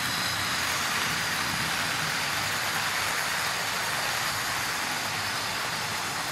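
Tri-ang Hornby OO-gauge model trains running at speed on metal Super 4 track: a steady running noise of tender-drive motors and wheels on the rails.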